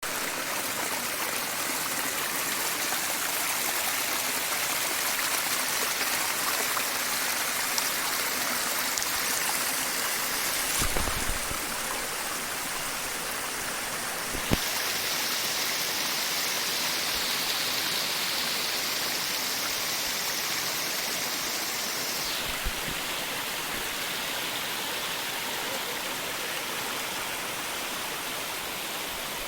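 Rush of a waterfall: a steady, loud wash of falling water whose tone shifts about halfway through and again later. A brief low rumble and a single knock come near the middle.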